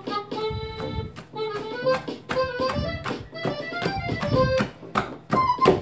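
Background music: a melody of short, quickly changing notes over a tapping beat, the beat growing louder near the end.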